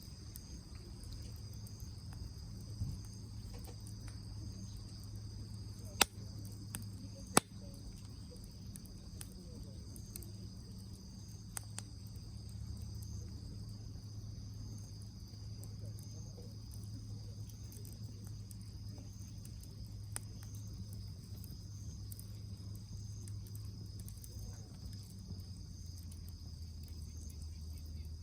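Steady high chirring of insects in the background, with two sharp clicks about six and seven seconds in.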